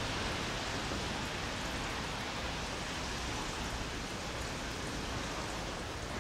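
Steady hiss of light rain falling, with a low rumble underneath.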